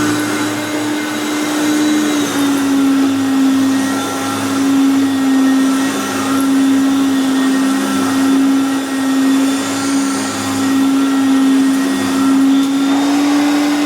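1990 Hoover Concept One upright vacuum cleaner with a 7-amp motor, running loud and steady with a strong motor hum. The pitch drops slightly about two seconds in and comes back up near the end.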